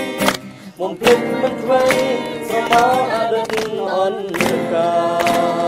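Khmer song sung with vibrato to a strummed acoustic guitar, with hand claps keeping time.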